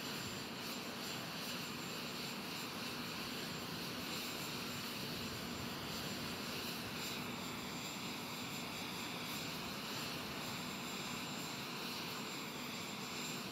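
Steady jet aircraft engine noise on an airfield: an even rushing hiss with a thin, constant high whine over it, unchanging throughout.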